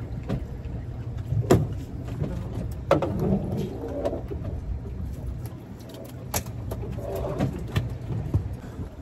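Small-boat ambience while a fish is being handled: a steady low rumble with a few sharp knocks and clicks, and a few faint wavering calls in between.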